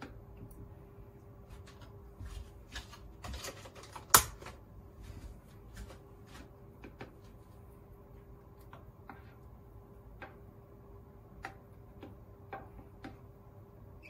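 Chopsticks and a spoon clicking and tapping against a soup bowl while miso soup is stirred: scattered small taps, the sharpest about four seconds in. A faint steady hum runs underneath.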